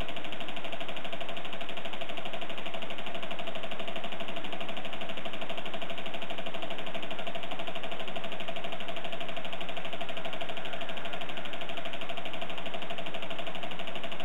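Single-cylinder spark-ignition model engine running steadily, with a fast, even beat and a constant hum.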